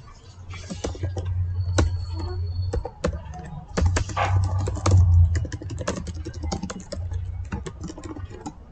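Typing on a computer keyboard: quick, irregular keystroke clicks throughout, over a low hum that swells and fades. A brief high thin tone sounds about two seconds in.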